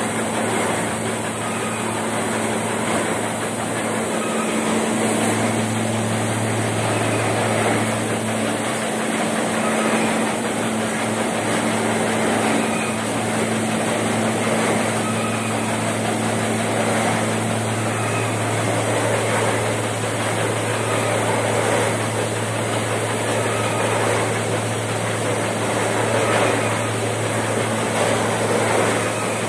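Petkus 541 air-screen seed cleaner running: a steady hum from its motors over a constant rushing noise of air and grain moving through the machine, the hum getting louder for a few seconds at a time.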